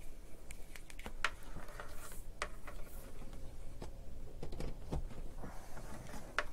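Scattered light clicks and knocks of a power cord and its plug being handled and dragged across a workbench, a few separate ticks over a low steady hum.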